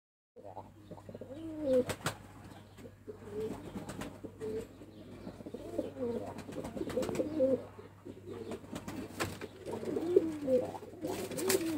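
White dolapçı pigeons cooing repeatedly, warbling coos overlapping one another, with a few sharp clicks among them.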